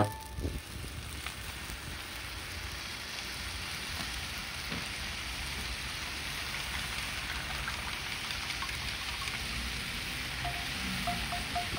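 Yakisoba noodles with vegetables sizzling steadily in nonstick frying pans, freshly dressed with sauce; the sizzle slowly grows louder.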